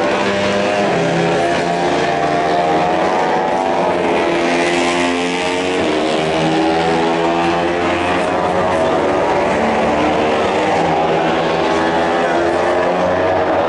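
Racing motorcycle engines at high revs as bikes accelerate past on track, the pitch repeatedly climbing and dropping back through gear changes. Several engines overlap, with a louder rush about five seconds in as a bike passes close.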